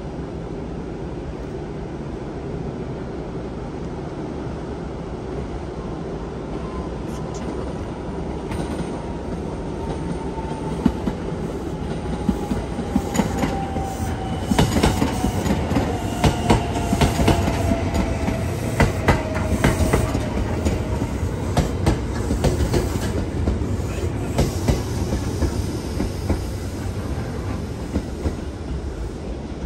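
Electric commuter train passing on an adjacent track: a low rumble that builds as it nears, its wheels clacking rhythmically over the rail joints as the cars go by, with a whine that falls slowly in pitch, then the sound fades as it moves away.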